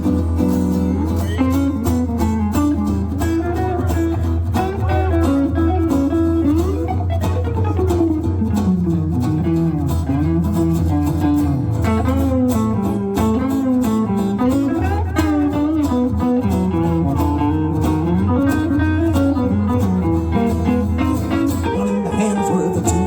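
Live band music with no singing: an instrumental break with a guitar playing a moving lead line over a steady bass and rhythm.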